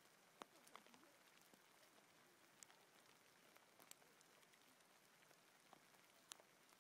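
Faint hail falling on a forest floor: a soft, steady patter with scattered sharper ticks of single hailstones striking.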